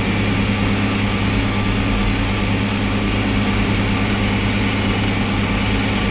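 Tractor engine running steadily while towing loaded corn wagons up a hill.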